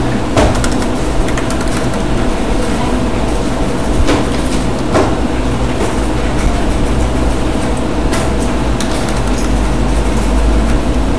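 Steady mechanical hum over a low rumble, with a few scattered sharp clicks.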